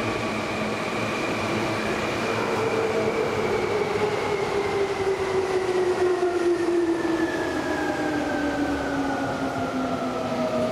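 Seibu 6000-series electric train pulling into a station, its wheels rumbling on the rails while the whine of its inverter-driven traction motors falls steadily in pitch as the train brakes.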